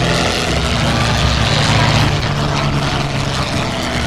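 Single-engine propeller plane's piston engine running as it makes a low pass, with a steady low drone under a rushing noise that is loudest around the middle.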